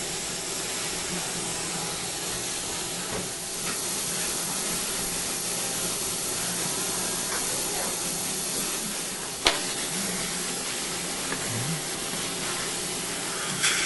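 Steady airy hiss, with one sharp click about nine and a half seconds in.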